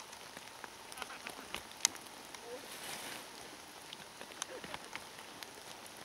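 Rain falling on the wet forest floor around the microphone: a soft hiss with scattered sharp drop ticks, one louder tick about two seconds in.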